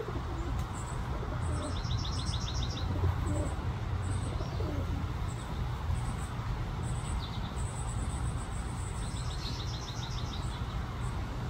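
Dark-eyed juncos calling: thin high chips repeated throughout, with two rapid even trills of about ten notes each, one about two seconds in and one about nine seconds in.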